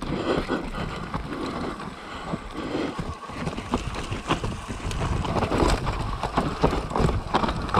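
Mountain bike riding down a rough trail: a steady rumble of tyres over dirt and rock, with wind on the microphone and frequent clicks and clatters from the bike.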